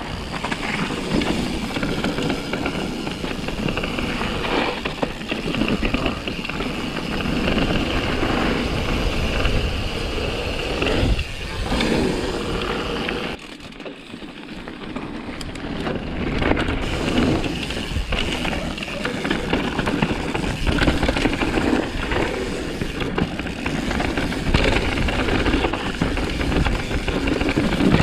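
Propain Tyee mountain bike ridden down a rough forest downhill trail: continuous tyre rumble over dirt and roots, with the bike rattling and wind on the microphone. For about three seconds around the middle the noise drops away, then picks up again.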